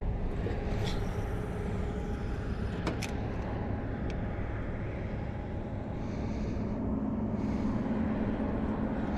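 Steady hum and hiss of a running electric trolling motor, with a couple of faint clicks about three seconds in.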